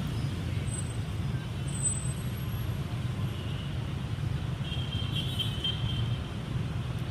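Steady low rumble of city street traffic, with faint high-pitched tones about five seconds in.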